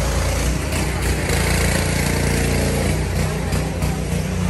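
A motor vehicle engine running steadily, a low even hum under street noise.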